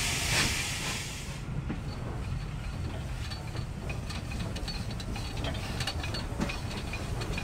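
Steam hissing loudly from a Southern Railway Bulleid Pacific steam locomotive, cut off sharply about a second and a half in. It gives way to a steady low railway rumble with scattered sharp clicks and knocks.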